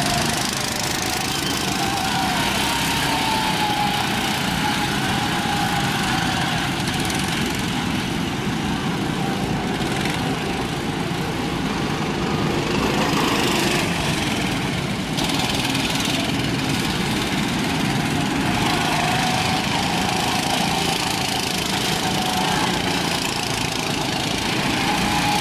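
Go-kart engines running on a track, a steady small-engine drone whose pitch wavers up and down as the karts speed up, slow and pass.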